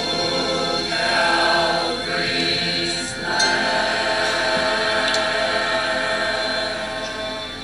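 A mixed church choir of men and women singing, holding long sustained notes; the sound begins to fade near the end.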